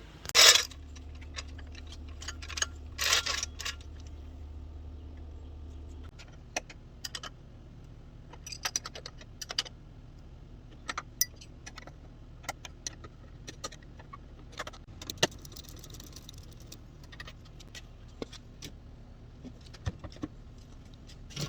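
Metal tools and parts clinking and clicking during hands-on work on a minivan sliding-door roller assembly, with two louder clatters in the first few seconds. A low hum underneath stops about six seconds in.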